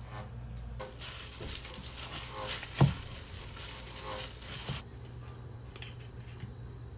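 Gloved hands mixing marinated spicy pork in a bowl: a wet squishing and plastic crinkling from about a second in to about five seconds in, with one loud thud near the middle. A low steady hum runs underneath.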